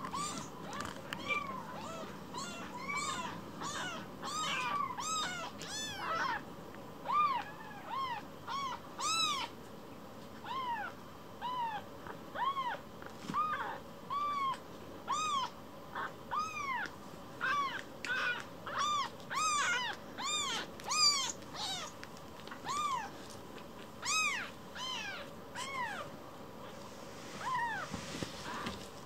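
Very young kitten mewing over and over: short, high calls that each rise and fall in pitch, about one a second.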